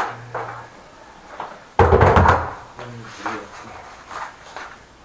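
A heavy equipment bag set down with a dull thud about two seconds in, among softer knocks and handling noise.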